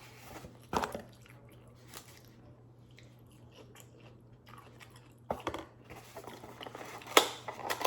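Close-miked eating sounds: someone chewing and biting food, with wet smacks and a few sharper mouth clicks, over a faint steady low hum.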